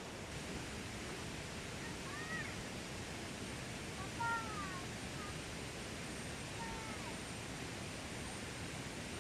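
Three short arched calls from an animal, about two seconds apart, the middle one the loudest, over a steady outdoor hiss.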